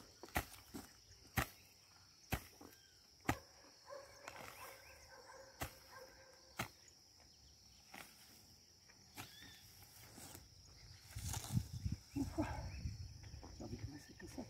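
Garden hoe chopping into damp soil, a dull knock about once a second, then a denser stretch of scraping and rustling in the soil for the last few seconds. A steady high insect buzz runs behind it.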